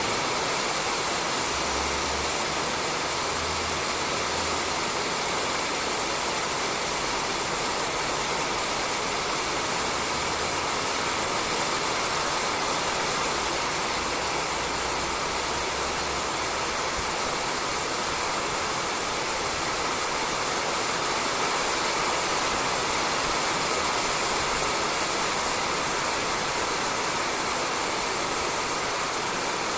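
Steady rain falling on a roof, an even unbroken hiss.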